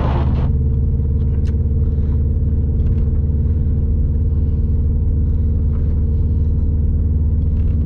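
Subaru WRX STI driving through fresh snow, heard from inside the cabin: a steady low engine drone mixed with tyre and road rumble.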